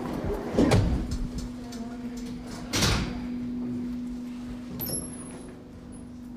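Two loud door clunks, about a second in and again near three seconds, over a steady low hum. A short high beep sounds about five seconds in.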